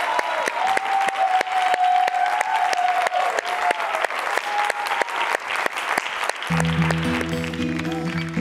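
Studio audience applauding, with one voice calling out in a long wavering cheer over the clapping for the first few seconds. About six and a half seconds in, strummed acoustic guitar music starts under the applause.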